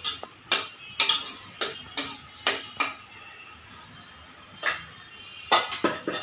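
A metal spoon knocking against the inside of a stainless steel pot while stirring a thick gravy, about two knocks a second for the first three seconds. Then a single metal clink, and three quick clinks near the end.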